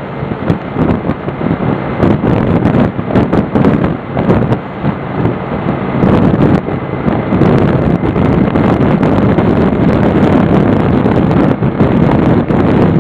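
Motorcycle running at highway cruising speed, its steady engine drone half buried under heavy wind buffeting on the microphone.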